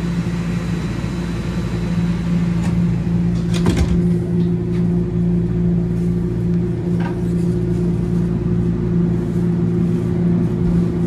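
Toronto Rocket subway train pulling out of a station, heard from inside the car: a steady motor hum, with a second, higher hum joining about three and a half seconds in, just as a short clatter of knocks comes through.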